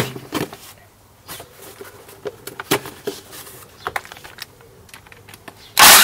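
Light clicks and knocks of small bolts being handled and pressed into a piece of cardboard. Near the end a cordless impact driver starts hammering loudly on a camshaft bearing cradle bolt.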